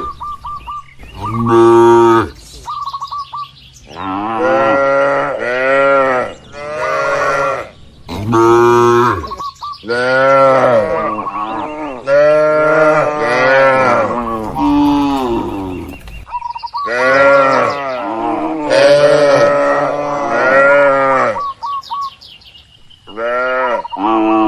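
A herd of cattle mooing over and over. Several calls overlap, each rising and then falling in pitch, in loud runs with short breaks, and brief thin high chirps come between some of them.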